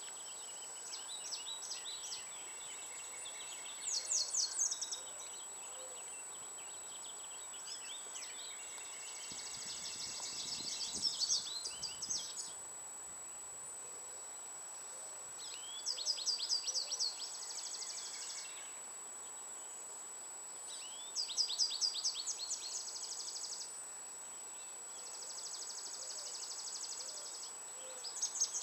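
A songbird singing a repeated phrase about every five seconds: a quick run of high sweeping notes, some phrases ending in a fast buzzy trill. A steady thin high-pitched tone runs underneath.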